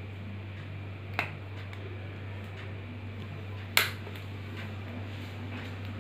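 Two sharp plastic clicks from a handheld oregano shaker bottle as it is shaken over food, a light one about a second in and a louder one near four seconds in, over a steady low hum.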